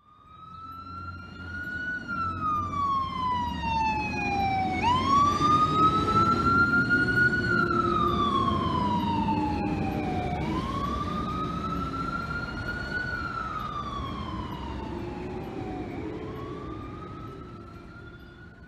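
Fire engine siren on a 2013 Spartan Gladiator pumper, wailing in slow rises and falls about every five and a half seconds over the truck's engine rumble. It is loudest in the middle and fades near the end as the engine drives away.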